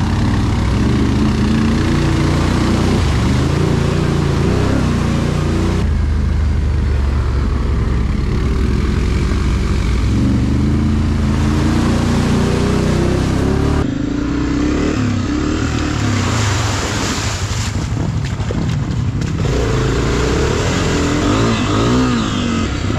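ATV (quad) engine running under way, its pitch rising and falling as the throttle is worked. The sound changes abruptly about six and fourteen seconds in. Between about fourteen and nineteen seconds there is a run of knocks and rattles.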